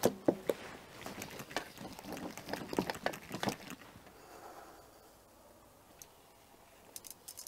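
Raw stingray pieces handled in a steel bowl: a quick run of clicks, knocks and wet squishing sounds for the first three and a half seconds. Then a pinch of salt is sprinkled over the meat, giving a few faint light ticks.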